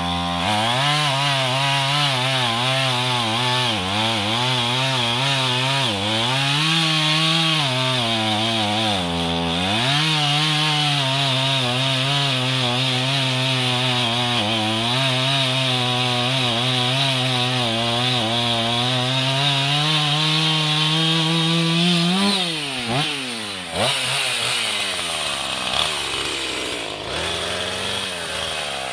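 Two-stroke petrol chainsaw cutting through a thick conifer log, its engine pitch wavering and dipping as the bar loads up in the wood, then recovering. About two-thirds of the way through, the engine speed falls away sharply, and it runs lower and unevenly after that.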